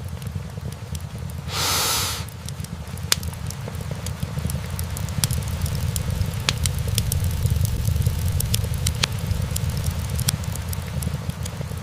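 Wood fire burning in a fireplace: a steady low rumble with frequent sharp crackles and pops from the logs, and a brief burst of hiss about two seconds in.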